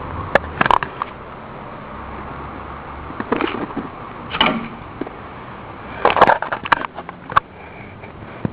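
An alarm clock being beaten: irregular knocks and clattering blows, two within the first second, heavier ones about three and a half and four and a half seconds in, and a quick flurry of several hits about six seconds in.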